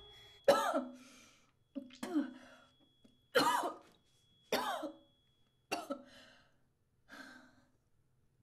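A woman coughing and choking in short, strained fits, about seven of them, one every second or so.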